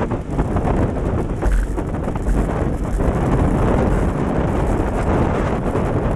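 Wind rushing over the microphone of a handlebar camera on a road bike moving at speed, a steady loud noise with no break.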